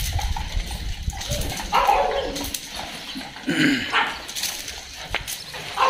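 A dog giving a few short barks and whines. Wind rumbles on the microphone in the first second or so.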